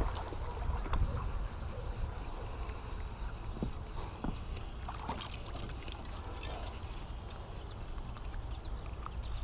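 Wind rumbling on the microphone, with scattered light splashes and clicks as a small bass is reeled to the dock and landed by hand.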